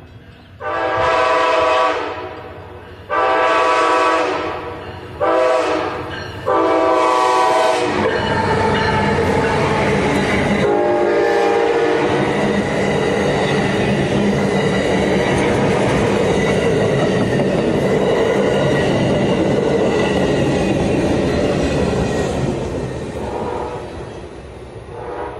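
Amtrak Siemens SC-44 Charger diesel locomotive sounding its horn in the grade-crossing pattern, long, long, short, long, the last blast running into the train passing close by. The locomotive and its passenger cars' wheels clatter over the rails loudly for over ten seconds, then fade as the train moves away.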